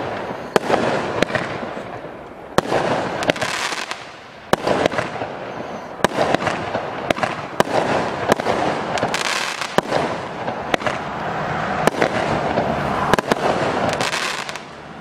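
Storm Force 19-shot single-ignition firework cake with 30mm tubes firing shot after shot, a sharp bang roughly every half second to a second, with a loud rushing noise between the bangs.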